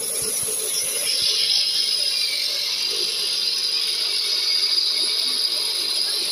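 Small electric masala grinder (chakki) running steadily while grinding whole spice seeds fed from its hopper, a constant high hiss. A few light ticks in the first second or so.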